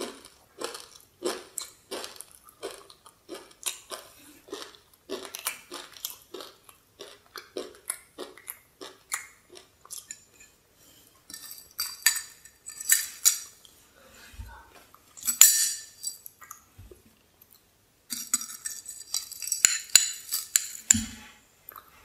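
A spoon crushing dry Hao Hao instant noodles in a glass bowl: a steady run of taps as a metal spoon presses the crumbs. It is followed by louder clinks and scraping, then a dense crackle, as a ceramic spoon grinds and scoops the crumbs against the glass.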